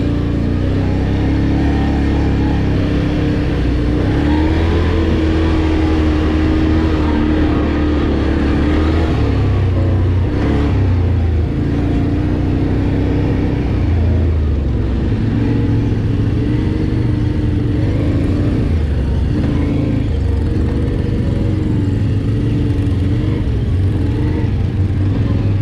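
Quad bike (ATV) engine running under way, its pitch rising and falling again and again as the throttle is opened and eased, over a heavy low rumble.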